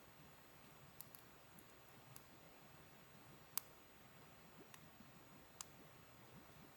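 Faint wood campfire crackling: a handful of sharp, scattered pops, the loudest about three and a half seconds in, over a quiet background.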